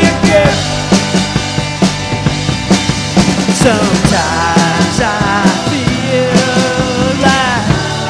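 Rock song with drum kit and guitar playing a steady beat; from about halfway a sliding melody line comes in.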